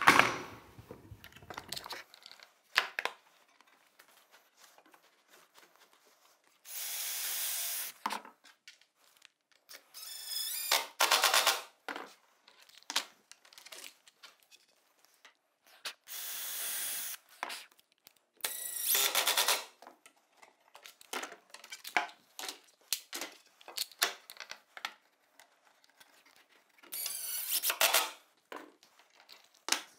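Cordless drill-driver driving screws into multiplex plywood panels: about five short whirring runs of a second or so each, some rising in pitch as the motor spins up. Clicks and knocks of the panels and screws being handled come between the runs.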